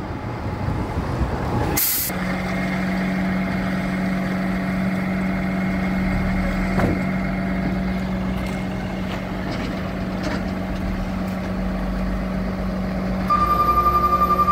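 A Freightliner M2 106 bucket truck's diesel engine idling, with a short sharp hiss of air brakes about two seconds in as the stopped truck's brakes are set, followed by a steady low hum. Near the end a fast, high beeping alarm starts up.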